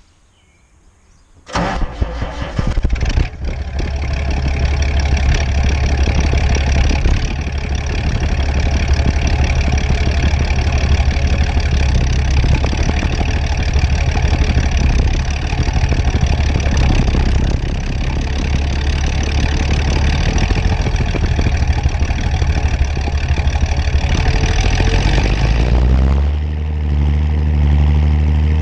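John Deere 6510 tractor's diesel engine cranking and starting about a second and a half in, then running steadily. Near the end its note changes and settles into a lower, smoother run.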